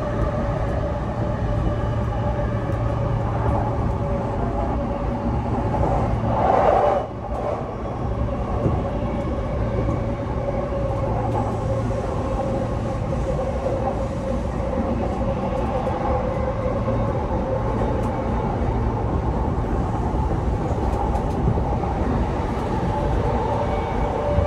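Interior running sound of a JR East E233 series 0 electric train, heard from the motor car: a steady motor hum over wheel-on-rail rumble. About seven seconds in there is a brief louder rush, then a short drop.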